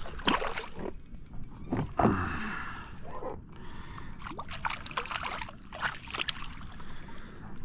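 A hooked bream splashing at the water's surface beside a kayak, then scooped into a landing net, with irregular splashes and sharp knocks throughout.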